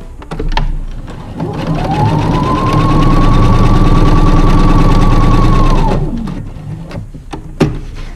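Domestic electric sewing machine stitching faux leather under a roller presser foot, the material feeding smoothly: the motor speeds up about a second and a half in, runs fast and steady for a few seconds, then slows to a stop. A sharp click comes near the end.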